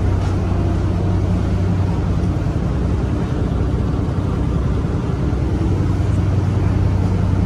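A car ferry's engines running with a steady low hum and drone.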